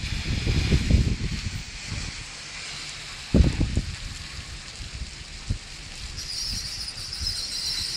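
Thunderstorm rain with a steady hiss and low rumbling wind gusts on the microphone in the first two seconds. A single thump comes about three seconds in.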